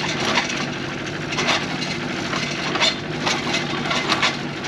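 Wood cracking and splintering in a series of sharp snaps while a tree is being broken up and its roots torn out, over an engine running steadily.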